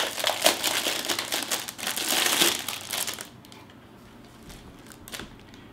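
Clear plastic bag crinkling and rustling as a boxed unit is pulled out of it, stopping about three seconds in.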